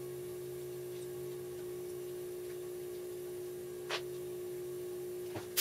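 Steady hum with one held tone from a small benchtop CNC mill standing powered between cuts, with a light click about four seconds in and another near the end as the machined stainless parts are handled on the mill table.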